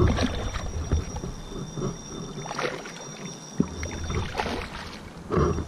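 Water splashing and sloshing in short, scattered bursts as a landing net is worked through shallow lake water around a hooked mirror carp that resists being netted. A low rumble runs through the first second.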